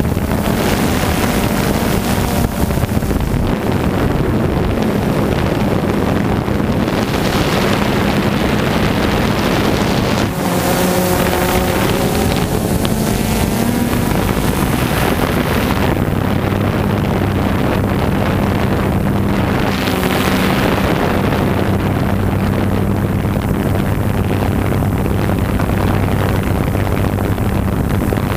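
Quadcopter drone's motors and propellers droning steadily, a buzzing hum that shifts pitch a few times, with wind rushing over the microphone.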